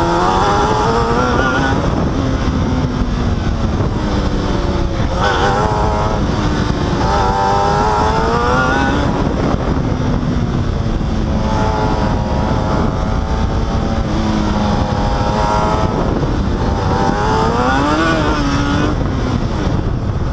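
Formula SAE racecar engine revving hard and easing off in turn as the car accelerates and slows through tight turns, its pitch rising and falling about six times over a heavy rumble.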